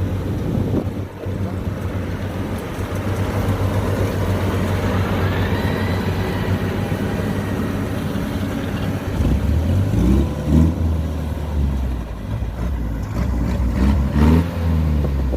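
Diesel engine of harvest machinery running steadily in a rice field. About nine seconds in a heavier, lower engine drone comes in, with two brief louder surges.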